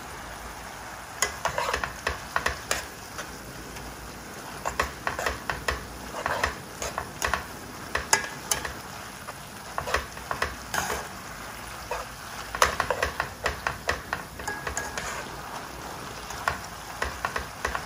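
Tongs tossing spaghetti and clams in their shells through a sizzling skillet: bursts of irregular sharp clacks over a steady sizzle, as the pasta finishes cooking in the clam sauce.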